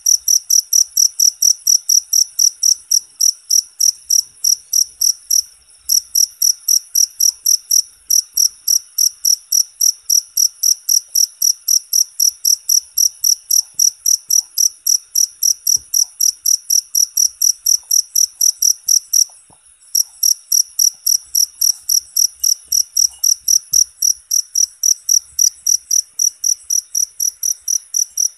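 A cricket chirping loudly and steadily, a high, even pulsing at about three chirps a second, broken by a few brief pauses.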